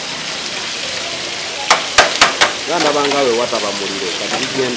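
Chicken sizzling on a metal tray over an open fire, a steady hiss, with four sharp clacks close together about two seconds in.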